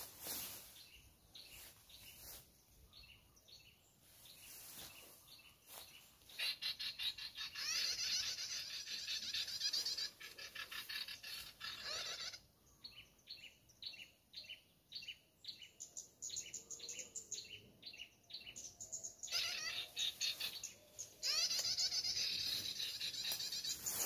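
Recorded small-songbird calls played from an MP3 speaker as a lure for trapping birds with lime sticks. A dense, rapid chattering trill starts about six seconds in, then comes a run of evenly spaced sharp chirps about two a second, and the chattering returns near the end.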